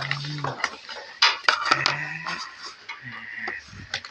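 Clear plastic blister packaging of a toy kitchen set crinkling and crackling as it is handled, with small clicks and knocks from the plastic toy pans and utensils inside.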